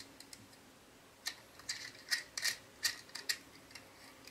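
Hex key clicking and scraping in the clamp bolt of an aluminium handlebar-extender bracket as the bolt is tightened onto the carbon tube. A cluster of short metallic clicks comes from about one second in to past three seconds.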